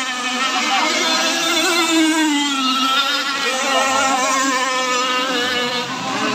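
Several radio-controlled tunnel catamaran racing boats with small two-stroke petrol engines running at high revs together, their overlapping engine notes shifting up and down in pitch as the boats race around the course.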